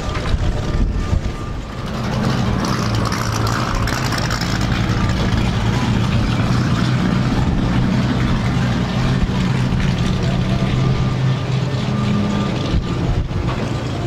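Car engine idling steadily, a low, even running note that grows a little louder about two seconds in.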